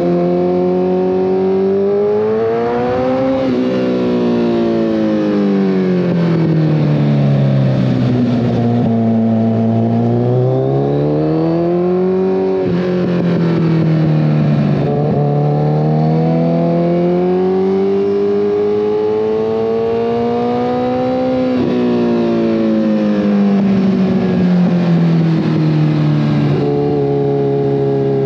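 2014 Kawasaki ZX-14R inline-four through a full Brock's Alien Head 2 exhaust, the revs climbing and falling repeatedly as the throttle is worked on the road. The pitch jumps abruptly a few times at gear changes.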